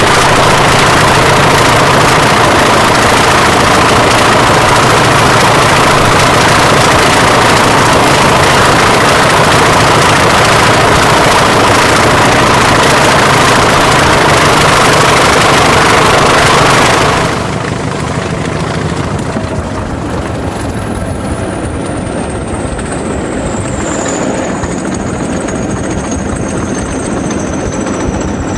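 Class 20 diesel locomotives' English Electric 8SVT engines running, loud and steady. About two-thirds of the way through the sound drops abruptly to a quieter running train, with a high whine slowly falling in pitch near the end.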